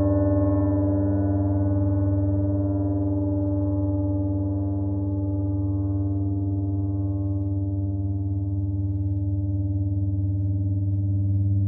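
A large gong sounding a long sustained drone: a deep steady hum layered with many ringing overtones, with no separate strikes. The drone eases a little in the middle and swells again near the end.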